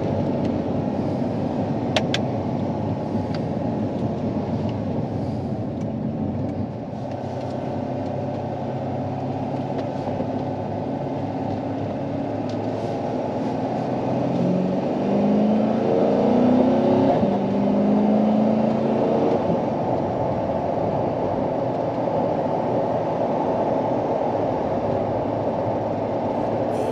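2020 Corvette C8's 6.2-litre V8, heard from inside the cabin, pulling the car along with road noise; around the middle it climbs in pitch under acceleration and steps through upshifts, then settles into a steady cruise.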